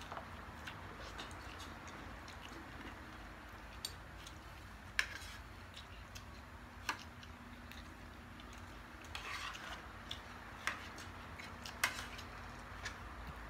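Eating sounds of two people eating with their hands: scattered small clicks and taps of fingers and food against plates, with a few louder knocks, over a low steady hum.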